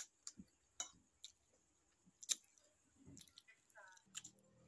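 Faint close-up chewing: wet mouth clicks and smacks, about a dozen sharp ticks scattered through, the loudest a little past halfway.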